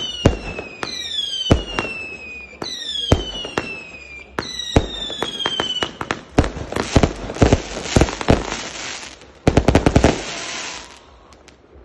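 Fireworks going off: a string of whistling shots, each whistle falling in pitch and coming about every one and a half seconds with sharp bangs. From about six seconds in, a dense volley of crackling bangs takes over, stops abruptly near ten seconds and dies away.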